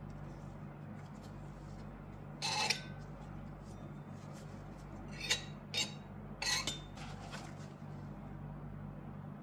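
A knife clinking and scraping against the rims of stainless steel tart rings four times, trimming the pastry edges. The first stroke, about two and a half seconds in, is the longest and loudest, and three quicker ones follow over the next few seconds. A steady low hum runs underneath.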